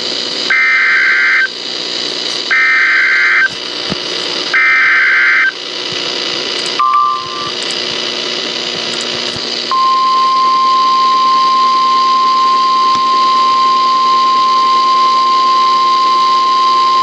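Emergency Alert System alert received over radio static: three one-second screeching bursts of SAME header data, a short beep, and then a single steady attention tone that starts about ten seconds in and holds. These signals announce a severe thunderstorm warning.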